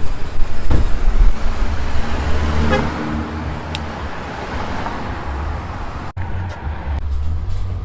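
Road traffic: a loud, steady low rumble of vehicles passing, with a brief pitched sound about three seconds in.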